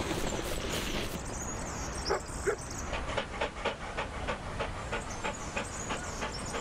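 Dog panting rapidly, about four breaths a second, after two short yips about two seconds in.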